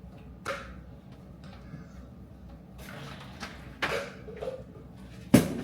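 Several sharp knocks and clatters of household things being handled, the loudest a hard knock near the end.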